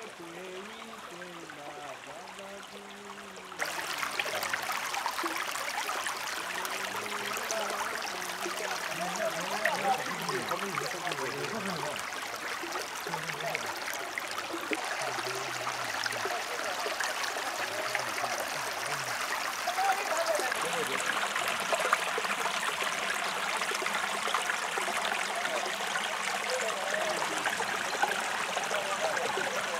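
Shallow creek running over flat rock ledges: a steady babble of water, with faint voices in the first dozen seconds. About three and a half seconds in, the water sound jumps suddenly louder and closer.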